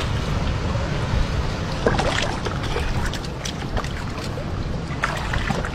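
Small portable engine-driven water pump running steadily as it drains a tide pool, with a few short splashes and knocks from hands moving stones in the shallow water.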